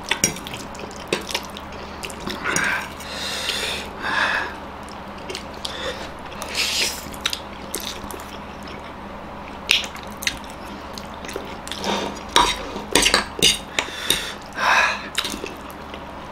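Instant ramen noodles being slurped and chewed, in a series of short sucking bursts, with metal forks clicking and scraping on the plates.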